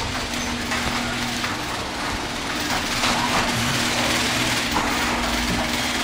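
Sectional garage door going up on its tracks in a test run just after its frayed lift cable was replaced, with a steady mechanical hum and rumble throughout.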